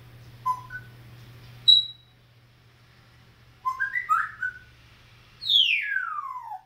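Pet bird whistling: a few short chirps, a quick run of notes about four seconds in, then one long whistle falling steeply in pitch near the end.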